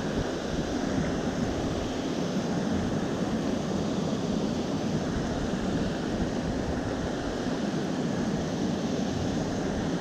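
Creek water rushing over rocks, a steady, unbroken rush.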